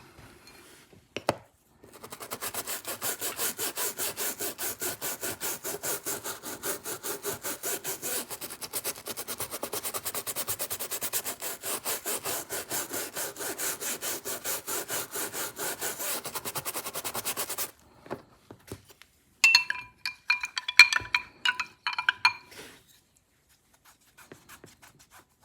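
Nylon brush scrubbing a textured G10 knife handle scale with dish soap, in rapid, even back-and-forth strokes for about fifteen seconds before it stops. A few light ringing clinks follow near the end.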